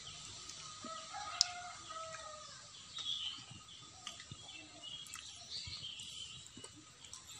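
A rooster crowing faintly in the distance over the first two seconds or so, with small birds chirping faintly later on. A single sharp click about a second and a half in is the loudest sound.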